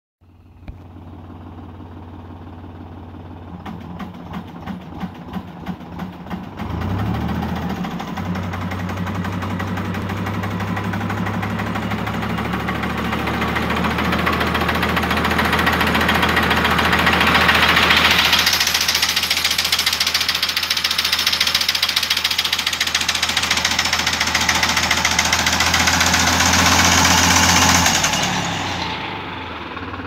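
Tractor-mounted cable tree shaker for walnut and almond harvesting, driven by a New Holland orchard tractor. The engine runs steadily with a pulsing beat about two to three times a second, then picks up about seven seconds in. A rushing noise from the shaken tree builds up to about halfway through, and near the end the engine slows and the shaking dies away.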